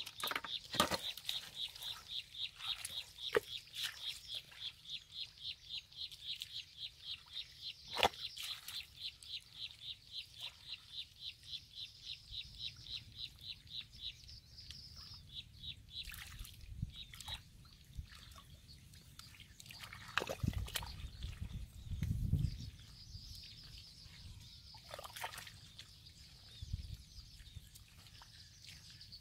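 Hands working in shallow wet mud: squelches, sloshes and drips, with a few dull thuds just past two-thirds of the way through. Over the first half a high chirping call repeats steadily, about three or four times a second, then fades out about halfway.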